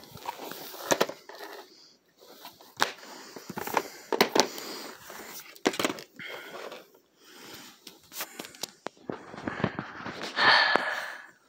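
Plastic VHS clamshell cases being handled: a string of sharp clicks and knocks as the cases are opened, shut and moved about, with rubbing and scraping of plastic between them. Near the end comes a louder rushing noise lasting about a second.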